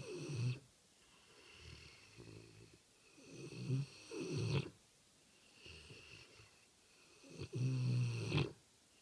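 Slow, regular snoring: a loud rattling snore on each breath in, near the start, about halfway through and again near the end, with a softer breath out between them.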